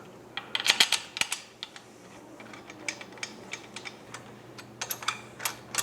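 Light clicks and taps of small bolts being handled and threaded in by hand into a motorcycle fork clamp. They come in two clusters, one near the start and one near the end, with single ticks in between.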